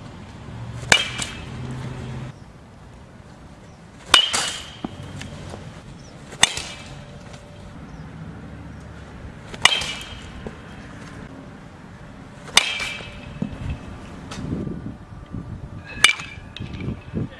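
Metal baseball bat hitting pitched balls in batting practice: six sharp cracks a few seconds apart, each with a short ringing ping.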